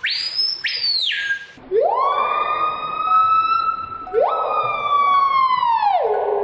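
Screaming piha giving loud whistled calls: a short high note that rises and falls, then two long whistles that sweep up and hold, the second dropping in pitch near the end.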